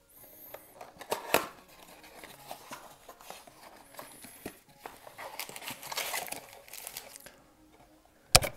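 Cardboard trading-card box being torn open by hand, with rustling and crinkling of the cardboard and the foil card packs inside, broken by sharp clicks. A loud knock comes just before the end.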